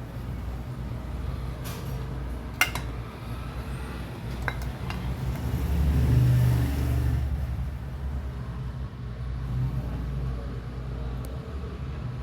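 A motor vehicle engine running with a steady low rumble that swells for a second or so about halfway through, with a few sharp metal clinks, one about two and a half seconds in and another a couple of seconds later.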